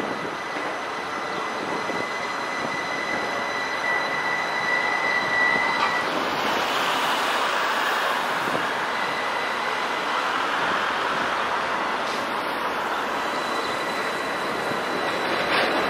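Articulated tram rolling along street rails, with a steady high-pitched squeal for about the first six seconds, then the noise of wheels on rail and passing traffic, growing louder near the end.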